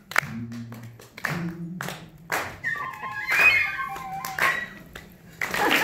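A run of sharp percussive hits, then about two seconds of several steady high tones sounding together, blown on a small hand-held wind instrument. Applause begins near the end.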